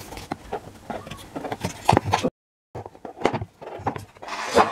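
Cardboard box of a phone charger being worked open by hand: irregular scraping, rubbing and tapping as the inner tray is pushed out of its sleeve. All sound drops out for a moment about halfway through.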